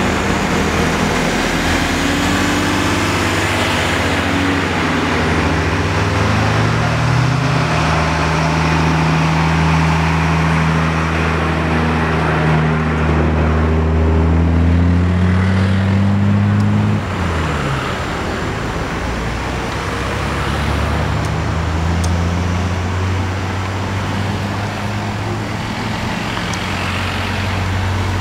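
Road vehicle engines running: a low engine drone that rises a little in pitch, then drops away about seventeen seconds in, after which a quieter engine drone carries on.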